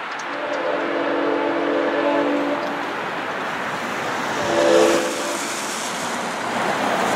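Nathan K5L five-chime air horn on a GE B32-8WH locomotive sounding one long blast, then a shorter, louder one about four and a half seconds in, a chord of several steady tones. Under it runs the steady noise of the passing train.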